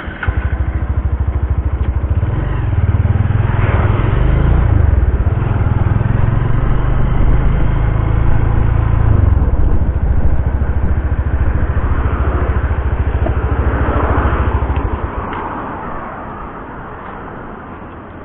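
Honda motorcycle engine starting and running as the bike is ridden. It grows louder about two seconds in as it pulls away, then dies down about fifteen seconds in as the bike slows and stops.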